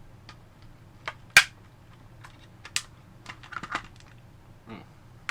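Plastic clicks and snaps from a PlayStation 4 controller's shell as a spudger pries it open and its internal plastic clips pop loose, one loud snap about a second and a half in and a quick run of smaller clicks a little later.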